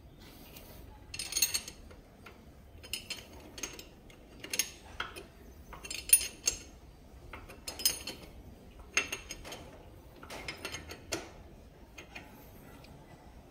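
Metal spanner clicking and scraping against a spark plug as the plug is tightened into the motorcycle's cylinder head: a series of short metallic clicks, about one every second, as the spanner is turned and reset.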